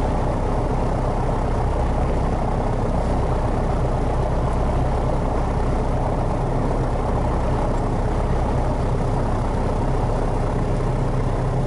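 Piper Cherokee's piston engine and propeller running steadily at idle in the parked light aircraft, with an even, unchanging low drone.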